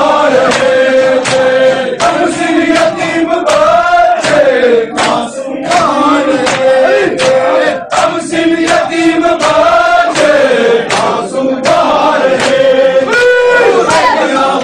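A group of men chanting a noha, a Shia mourning lament, in long held lines. Sharp, regular strikes of hands on chests (matam) keep the beat.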